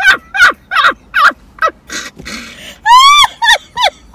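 Hard, high-pitched laughter from women in short whooping bursts, about three a second, each falling in pitch, with one longer, louder whoop about three seconds in.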